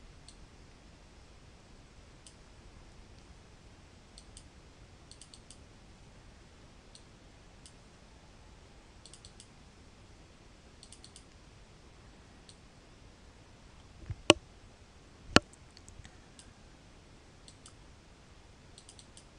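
Computer mouse clicking while files and folders are browsed. Faint clicks come scattered and in small quick clusters over a low hiss, with two louder clicks about fourteen and fifteen seconds in.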